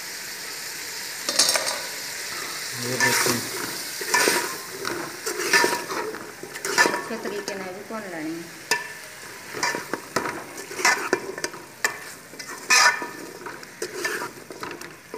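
Chopped spinach being stirred into chicken frying in masala in a metal pot with a metal spatula: repeated scraping strokes against the pot about once a second over a steady sizzle.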